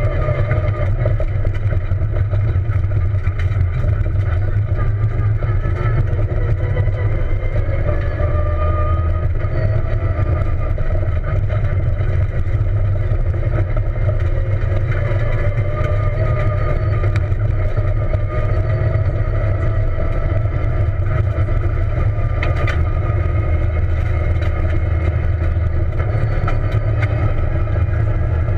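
Peugeot 207 rally car's engine running at speed on a dirt road, heard from inside the cabin: a heavy, steady rumble with the engine note rising and falling gently as the driver works the throttle. A single sharp knock about three-quarters of the way through.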